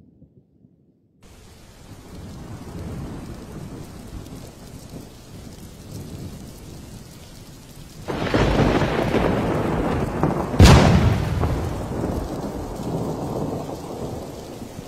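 Thunderstorm: rain falling steadily from about a second in, then a loud roll of thunder about eight seconds in, with a sharp thunderclap a couple of seconds later that rumbles on and slowly fades.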